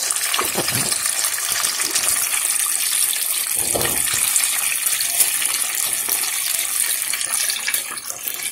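Whole fish deep-frying in hot oil in a pot, a steady sizzling hiss of bubbling oil.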